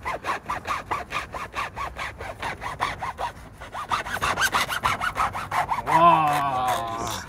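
Hand saw cutting through the heel of a sneaker in quick back-and-forth strokes, about five a second, as the heel is sawn off the sole.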